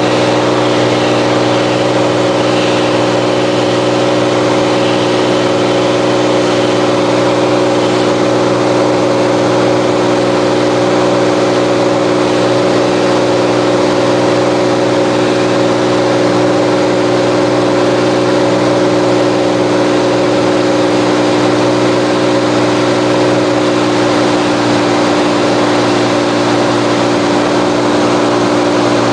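Cirrus SR22's six-cylinder piston engine and propeller droning steadily in cruise, heard inside the cockpit, with an even engine hum under wind and propeller noise.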